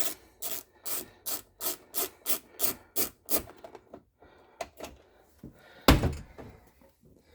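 A tool working the T27 Torx screws out of a car door latch: a quick run of short rasping strokes, about three a second, then fainter scraping and a single heavy thud about six seconds in.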